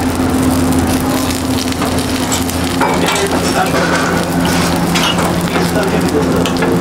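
Buns and patties sizzling on a flat steel griddle, with a metal spatula scraping and tapping on the steel as they are moved. A steady low hum runs underneath.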